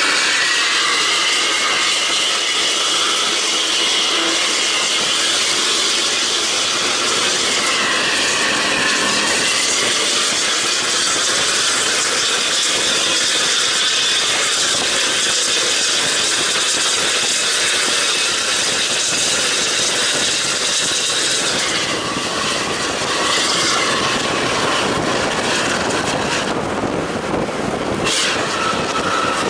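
Bus running at speed on a highway: steady engine and exhaust noise under heavy wind and road rush, with a high whine that wavers a little in pitch. The noise dips briefly about three quarters of the way through.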